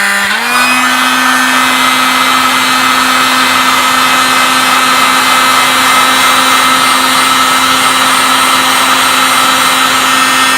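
Electric heat gun running steadily: a fan-motor hum and whine over a rush of hot air. About half a second in, its pitch steps up slightly, then holds. It is heating a heatsink to loosen a CPU stuck to it.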